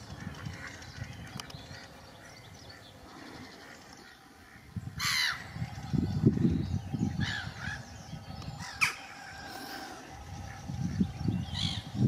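Several harsh, crow-like caws, the first and loudest about five seconds in and others following every couple of seconds. Bursts of low rumble run between the calls.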